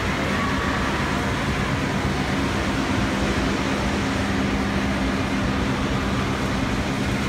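Chewy candy production line running: a steady machine hum with a low, even drone from the extruder, rope-sizing rollers and conveyor.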